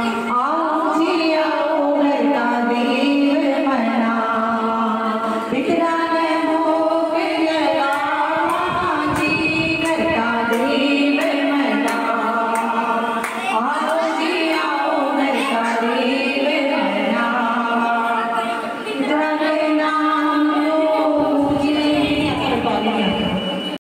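A group of women singing a Hindu devotional bhajan together, unaccompanied, with long held, wavering notes.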